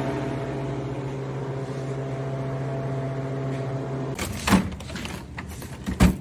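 Home freeze dryer's refrigeration compressor running with a steady hum while it pre-cools the chamber; the hum cuts off suddenly about four seconds in. Then two sharp knocks, the second near the end.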